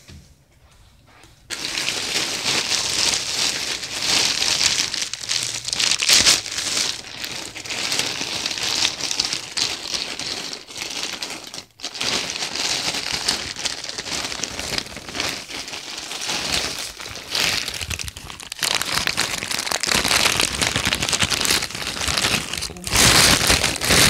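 Plastic poly mailer bag crinkling and rustling close to the microphone as it is handled and opened. It starts about a second and a half in, with a short break near the middle.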